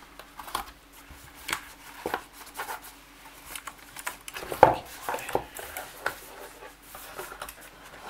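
Packing material being handled inside a cardboard box: a foam bag and styrofoam brackets rustling and knocking in a string of short, irregular scrapes and clicks. One louder knock comes about halfway through.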